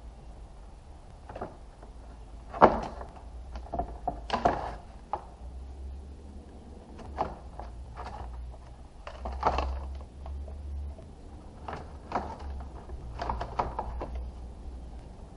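Irregular knocks, clicks and taps of hard plastic and metal parts being handled while a car's radiator assembly is worked loose, the sharpest knock about two and a half seconds in, over a faint low hum.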